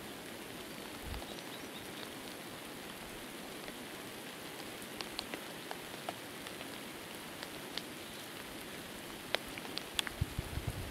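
Light rain falling: a steady hiss with scattered single raindrops ticking close by, and a quick run of louder drop hits near the end.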